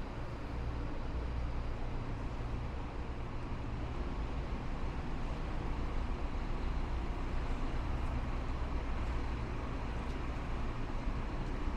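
City street traffic: a steady low engine rumble over road noise, growing a little louder after the first couple of seconds.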